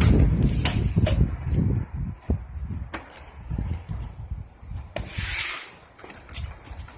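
Footsteps and knocks as someone climbs into a travel trailer. A heavy low rumble of wind or camera handling fills the first two seconds, scattered wooden-sounding knocks and thuds follow, and a short hiss comes about five seconds in.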